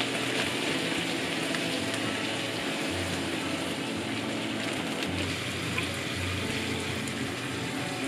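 Pork and onions sizzling in a hot frying pan as the leftover ginger-soy marinade is poured in: a steady, even hiss.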